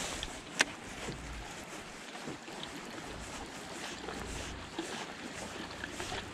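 Small waves lapping against a fishing boat's hull on choppy water, with one sharp click a little over half a second in.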